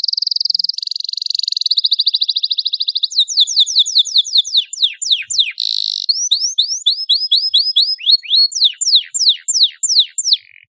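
Domestic canary singing a long, continuous song: fast trills and buzzy rolls, then long runs of rapid down-slurred whistled notes. The song stops just before the end.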